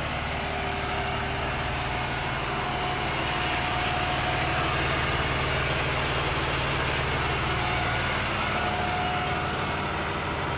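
Freightliner M2 rollback tow truck's Cummins diesel engine idling steadily.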